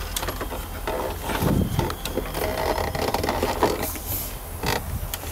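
Scattered clicks, knocks and rattles of a car's dashboard heater control panel being handled and worked loose by hand.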